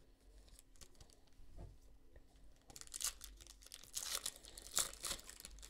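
Foil wrapper of a Prizm basketball card pack being torn open and crinkled by hand, in a run of short, crisp rustles that start about halfway through.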